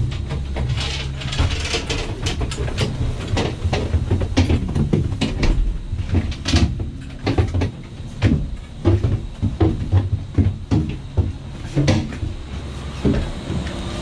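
Ten-seat Doppelmayr detachable gondola cabin riding with a low rumble, rattling and knocking irregularly, with the knocks coming thicker in the second half.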